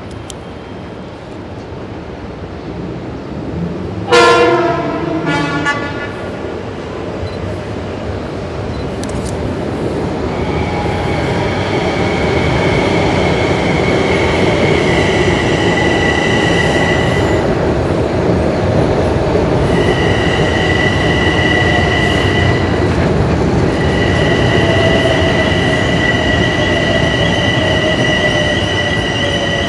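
Metro-North commuter train sounding its horn, a short blast and a shorter second one about four seconds in, then rolling in louder with a rumble of wheels on rail and high, steady wheel squeal that breaks off briefly twice, while a lower tone slowly falls near the end.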